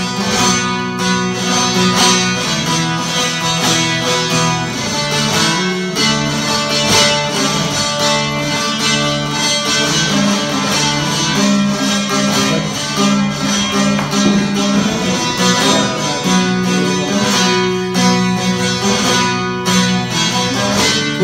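Solo bağlama (saz), the Turkish long-necked lute, playing the instrumental passage between sung verses: a busy plucked melody over a steady low drone.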